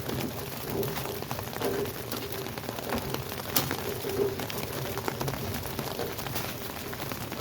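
Heavy rain falling steadily, with many small drops hitting close to the microphone, and a single sharp click about three and a half seconds in.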